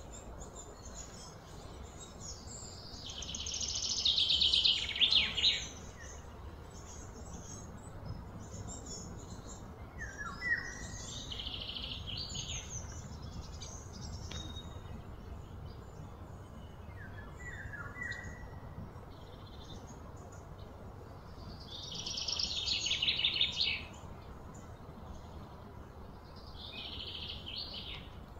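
Birds chirping, with two louder bouts of fast, high trilling that swell and then cut off, one about three seconds in and one about twenty-two seconds in, and a few short falling calls between them, over a steady low background rumble.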